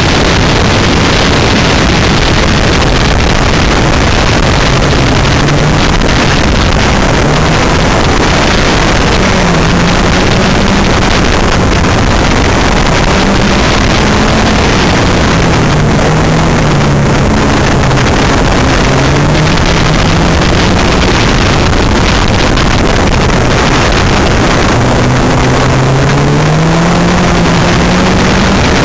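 Locost kit car's Ford Crossflow four-cylinder engine driven hard on a race circuit, its note rising and falling with the revs through gear changes. It is heard through loud, constant wind noise on the open-cockpit microphone.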